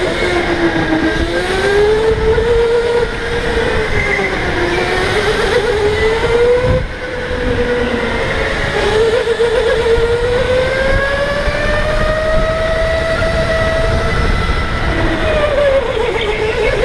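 Electric go-kart's motor whining, the pitch rising and falling with speed through the corners, over steady tyre noise on the concrete track. The whine climbs to its highest in the second half, then drops near the end.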